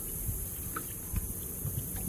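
Outdoor ambience on an open boat: uneven low wind rumble on the microphone with a steady high hiss, and a couple of faint knocks about a second in.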